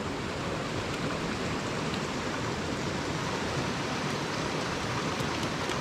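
Creek water running: a steady, even rushing.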